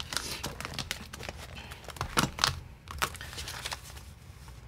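Paper banknotes and clear plastic binder pockets rustling and crinkling as they are handled, with a string of light clicks and taps.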